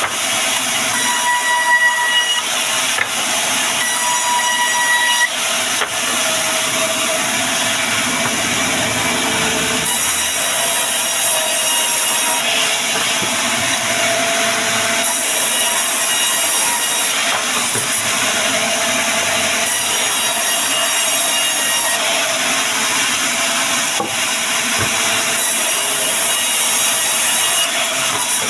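Band sawmill blade cutting through a log, a steady, loud sawing noise. In the first few seconds a whine sounds briefly several times.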